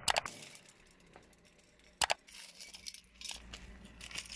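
Hard plastic toy cracking under a car tyre: a sharp crack at the start and another about two seconds in. Near the end, shards of clear and blue plastic clink and rattle as they are picked over by hand.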